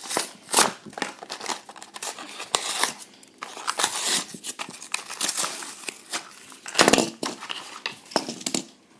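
Die-cast car packaging, a cardboard card with a plastic blister, being torn open by hand: irregular crinkling and ripping, loudest about half a second in and again near seven seconds.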